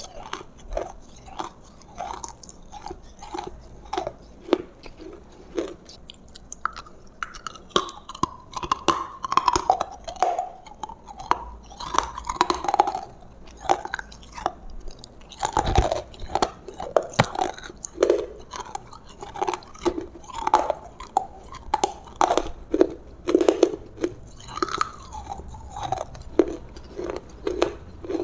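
Close-miked chewing of roasted food, with irregular crunches and wet mouth sounds throughout.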